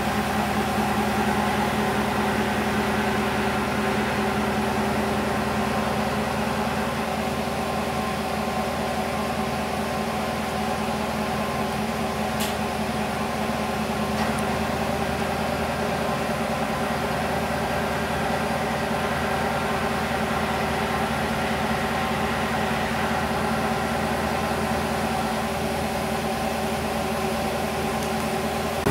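Ford F-350 Super Duty dually pickup's engine idling, a steady, even hum.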